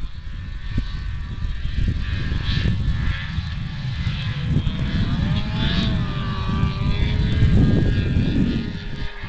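Snowmobile engine running at a distance as the sled climbs a snowy slope, its note rising and falling in pitch about midway through. It sits over an uneven low rumble.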